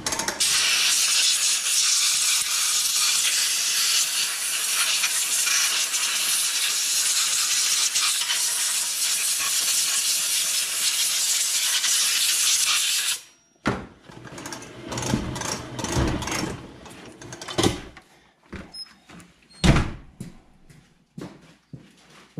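Long, loud, steady hiss of a pressurised jet blowing over a chainsaw power head to clean it, cutting off suddenly about 13 seconds in. Scattered knocks and clunks follow.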